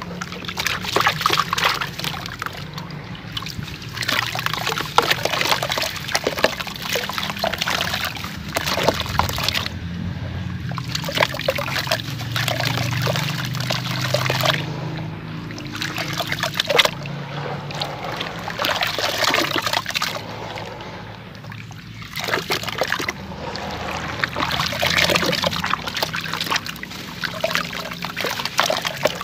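Wet, gritty grey lumps crumbled and squeezed by hand into a basin of muddy water: crumbs and slurry splash and trickle back in, with sloshing as the hands dip. It comes in spells with short pauses.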